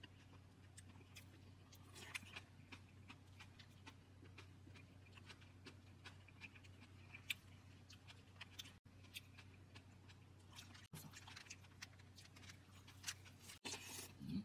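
Faint, scattered clicks and taps of metal chopsticks against plates and bowls while a perilla-leaf wrap of meat and rice is put together, with a few louder clicks near the end, over a low steady hum.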